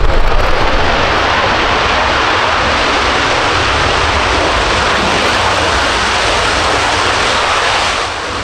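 Panavia Tornado's twin RB199 turbofan engines running with a loud, steady jet noise as the jet rolls along the runway; the noise eases off near the end.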